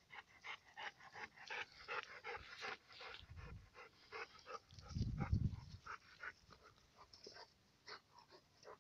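Golden retriever panting rapidly, about three to four pants a second, after a swim; the panting thins out in the second half. A brief low rumble about five seconds in is the loudest sound.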